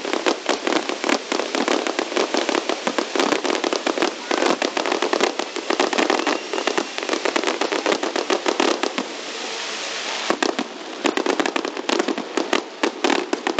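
Fireworks display: a dense, rapid barrage of crackling pops and bangs. There is a brief steadier hiss about nine to ten seconds in, then the rapid bangs resume.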